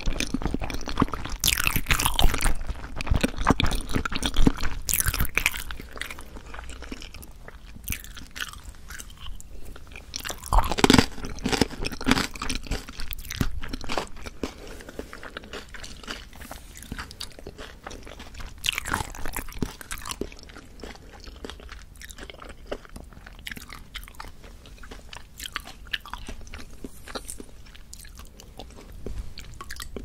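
Close-miked chewing of olbangae-muk, a chewy Korean water-chestnut starch jelly, with dense wet, sticky mouth clicks. The chewing is loudest in the first few seconds, then softer, with louder bursts about eleven and nineteen seconds in.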